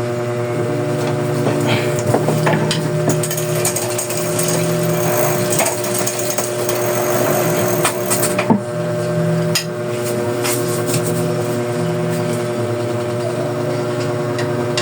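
Bicycle chain running over the sprockets and through the rear derailleur as the crank is turned by hand, with scattered clicks and knocks over a steady hum. The drivetrain is still noisy because the derailleur is not yet lined up with the sprocket.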